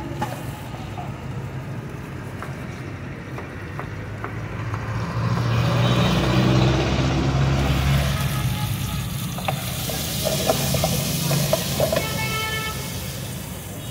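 Cleaver chopping onions on a plastic cutting board, then chicken, onions and green peppers sizzling loudly in a wok from about halfway through, with a wooden spatula clicking and scraping as they are stirred. A steady low rumble runs underneath.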